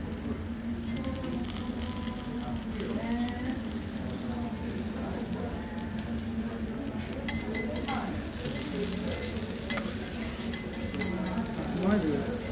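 A5 wagyu sirloin steak sizzling in its fat on a hot teppanyaki griddle: a steady frying hiss that turns to denser crackling and popping about seven seconds in.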